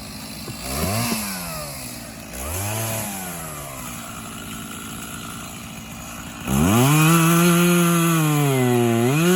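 Stihl Farm Boss MS 271 two-stroke chainsaw idling with two quick throttle blips in the first few seconds. About two-thirds of the way in it is opened up to full throttle, and its pitch dips briefly and recovers near the end.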